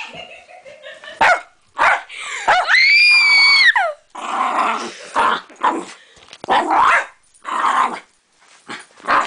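Small dog snarling, growling and barking in frantic bursts, with one long, loud, high shriek about three seconds in.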